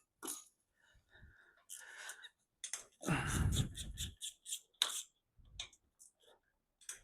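Intermittent clicks and clinks of small metal engine parts being handled and removed by hand, with a longer, louder clatter about three seconds in.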